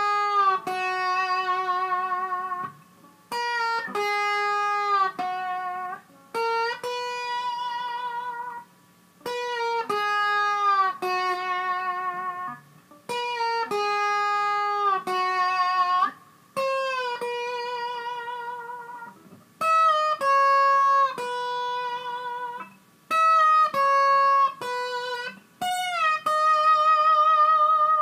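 Electric guitar played slide-style, instrumental with no singing: a slow melody of long sustained notes that glide into one another and waver in pitch, in short phrases broken by brief pauses.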